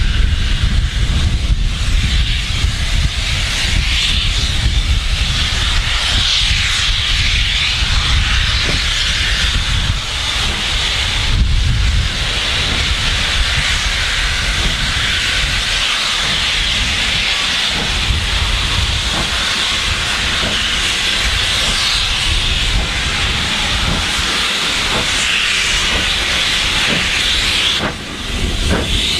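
Steady, loud steam hiss from GWR Castle Class 4-6-0 steam locomotive 5029 Nunney Castle standing at a station platform, with a low rumble underneath. The hiss dips briefly near the end.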